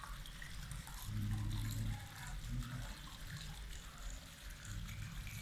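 Small fountain jet splashing and trickling into a shallow courtyard pool. A low hum comes and goes underneath, loudest about a second in.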